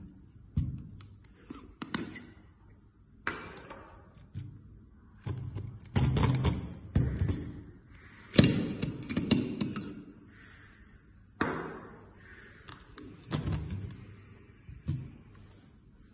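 Plastic housing of an AFMAT PSX6-9 electric pencil sharpener being handled as its clear shavings canister is twisted open and lifted off: a string of knocks, clicks and scrapes of plastic on plastic, loudest a little past the middle.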